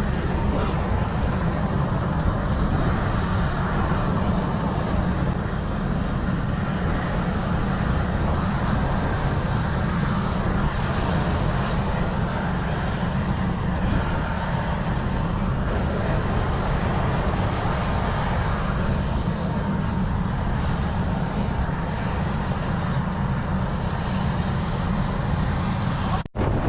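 Steady helicopter cabin noise: a constant, heavy low drone from the rotor and engine. It cuts out for an instant near the end.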